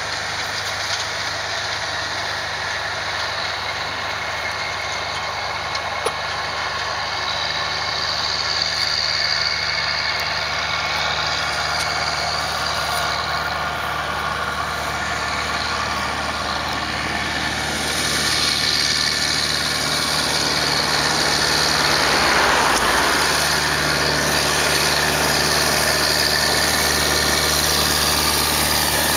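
Tractor diesel engine running steadily with a low drone, growing louder over the second half as it draws nearer.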